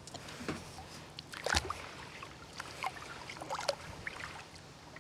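Kayak paddle strokes in the water, with irregular splashes and drips and a sharp knock about one and a half seconds in.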